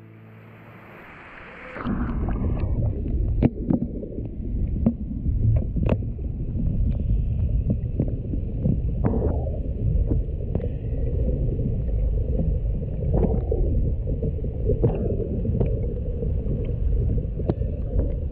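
Muffled underwater sound of moving water, picked up by a camera under the surface: a steady low rumble with scattered sharp clicks and knocks, setting in about two seconds in after a faint hiss.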